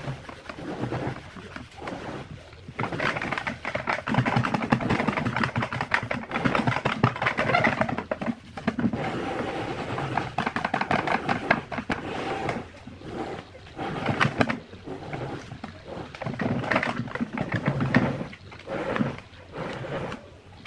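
A balled-up cloth rubbed hard back and forth over black textured wrap film on a wooden speaker box, pressing the film down: a rasping scrub in long runs of quick strokes with short pauses.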